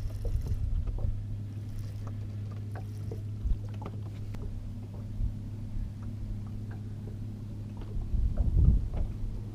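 Steady low hum of an electric bow-mounted trolling motor holding a bass boat in place, with scattered light taps and knocks and a brief low rumble near the end.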